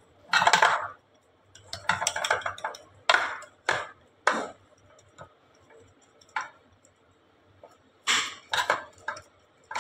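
Steel bowl pressing and scraping a soft barfi mixture into an aluminium cake tin, with irregular short scrapes and metal-on-metal knocks against the tin, and a quieter stretch in the middle.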